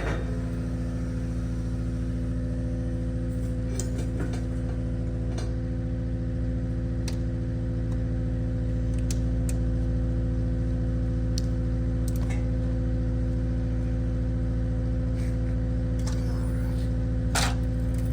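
Engine running steadily at a constant speed, with a few light clicks and one sharper knock near the end.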